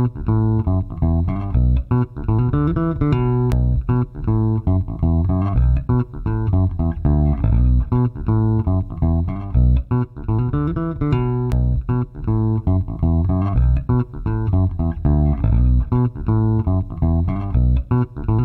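Funk bass guitar loop at 120 BPM playing back: a plucked bass riff that repeats about every eight seconds, run through a compressor.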